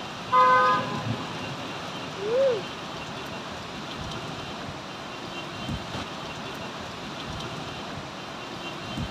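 Heavy rain pouring steadily, with a car horn honking once briefly about half a second in. A short tone rises and falls about two and a half seconds in.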